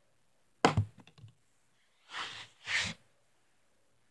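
A sharp knock, a few faint clicks just after it, then two short rustling bursts about a second and a half later.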